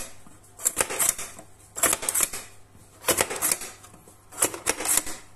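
Plastic plunger-type cherry pitter being worked, four times: each press of the plunger gives a quick cluster of sharp plastic clacks as it punches a stone out of a cherry and springs back, about every second and a half.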